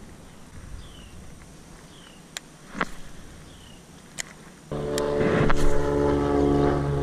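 A boat motor starts with a steady hum of several even tones, coming in suddenly about two-thirds of the way through. Before it there are only faint clicks.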